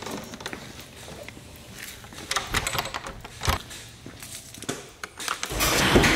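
Footsteps in sneakers on a concrete driveway, with the clicks and knocks of a handheld camera being carried, then near the end a louder noise as a car door handle is pulled and the door opened.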